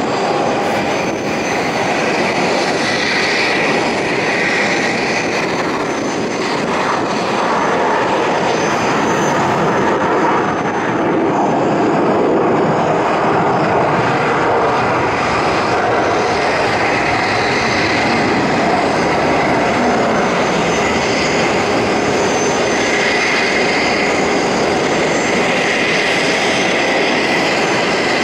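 Steady jet turbine noise on an airport ramp, an even roar with a high whine that swells and fades.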